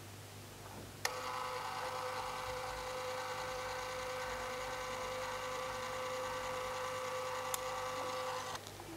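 Kaiser Baas PhotoScanner's sheet-feed motor starting with a click about a second in, then running with a steady whine as it draws a photo through the scanner, stopping abruptly just before the end.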